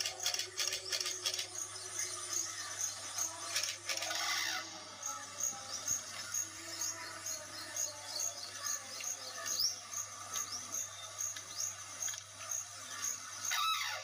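Sarus crane calls from a wildlife film, played back on a screen and picked up through a phone's microphone, with a steady electrical hum under them. Short high chirps repeat about twice a second in the background, and a louder call comes near the end.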